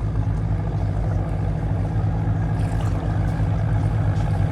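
A running engine: a steady low drone.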